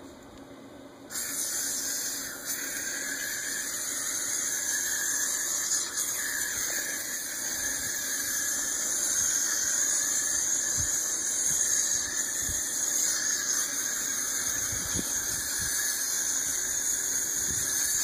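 Aerosol can of furniture polish spraying in a long, steady hiss, starting about a second in, with a brief dip a little later.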